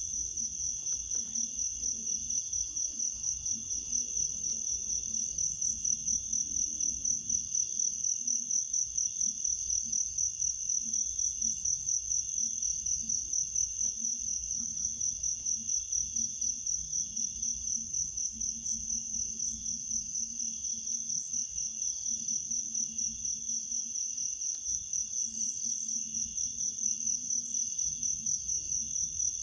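Insects trilling without a break: a loud, high, fast-pulsing trill with a fainter, lower trill under it.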